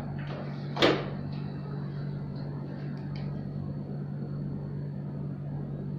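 Steady low machine hum, with one short sharp noise about a second in.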